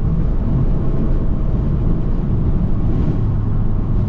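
Abarth 595 Turismo's turbocharged 1.4-litre four-cylinder running at a steady cruise, heard from inside the cabin with the windows down, with plenty of road and wind noise mixed in.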